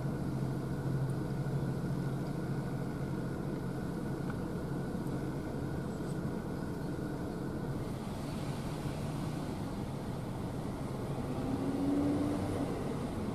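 The 16-cylinder EMD two-stroke diesel of an FEC GP38-2 locomotive running at low throttle, a steady low hum, as the switcher backs its freight cars slowly along the track. The sound swells briefly about twelve seconds in, with a short higher tone, as the cars roll by.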